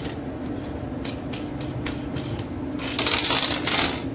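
Scattered small metal clicks and taps as the fasteners of a lifeboat's fibreglass inspection cover are undone by hand, then a louder rasping scrape about three seconds in as the cover is moved off, over a steady low hum.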